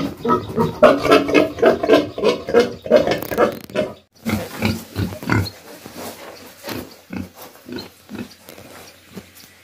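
Domestic pigs grunting: a loud, rapid run of calls for about the first four seconds, then after a sudden break shorter separate grunts about one or two a second, growing fainter toward the end.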